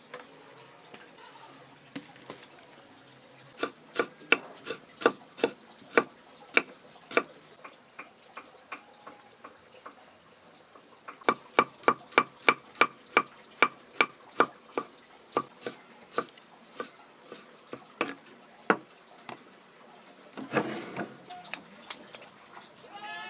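Kitchen knife chopping shallots and garlic on a wooden cutting board, in sharp knocks: a run of about two a second, then a quicker run of about four a second a few seconds later.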